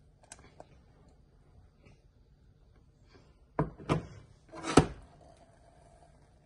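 Stainless steel saucepan knocking against a glass-top electric stove as it is handled and set down: two sharp knocks about three and a half seconds in, then a louder, slightly longer clunk about a second later, with a couple of faint clicks near the start.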